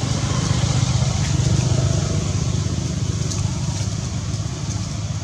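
A motor vehicle's engine running low and steady, swelling about a second or two in and then easing off slowly.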